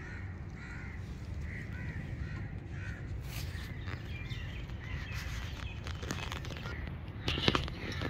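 A bird calling over and over, about twice a second, under steady low background noise; the calls die away about three seconds in. A few sharp knocks and rattles come near the end.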